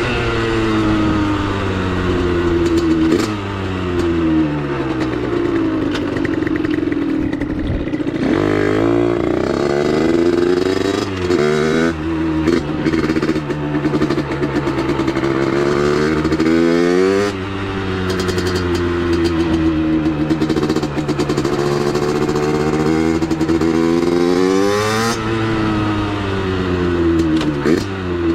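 Two-stroke 70cc single of a Vent DR70 supermoto (Minarelli AM6) with a Giannelli expansion chamber and DBR silencer, revving up through the gears under way: the pitch climbs, drops at each shift and climbs again several times. It runs cleanly, well carburetted on its 21 mm carburettor.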